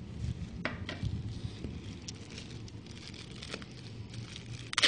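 Packaging being handled: faint rustling and crinkling, with a few small clicks and one sharper click near the end.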